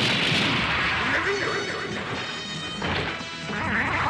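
A sound-effect explosion: a sudden boom at the very start that rumbles and crackles on, slowly fading, over background music. Further crash hits follow about three seconds in and near the end.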